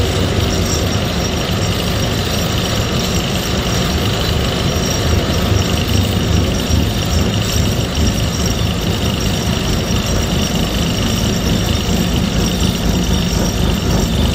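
Vibratory pile driver on a crane hook shaking a steel H-beam pile down into the ground: a loud, continuous, rapid clatter over a deep rumble, swelling a little about halfway through.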